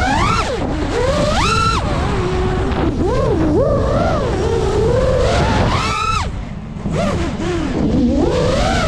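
FPV drone's brushless motors whining, the pitch swooping up and down sharply as the throttle is punched and eased. There is a steady rush of prop wash and wind underneath, and the whine drops away briefly about two-thirds of the way through as the throttle is cut for a dive.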